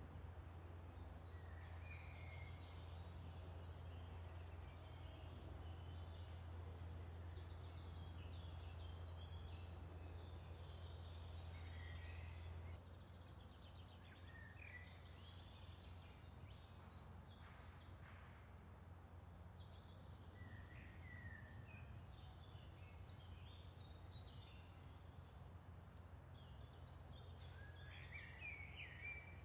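Faint woodland birdsong: several small birds singing, with quick trills and short whistled phrases, over a low steady background hum that drops slightly about 13 seconds in.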